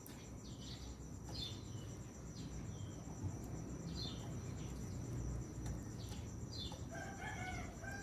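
Orange-headed thrush (peleci) song: short falling whistled notes repeated about once a second, with a lower warbled phrase near the end. A steady high insect trill runs underneath.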